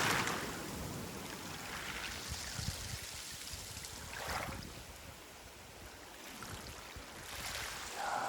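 Small sea waves washing up over a pebble beach and draining back, in a few soft surges.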